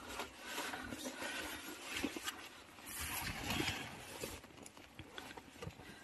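Scuffing and scraping of body and clothing on rock and loose dirt as someone crawls down through a narrow cave passage, with a few small knocks of stones and gravel shifting.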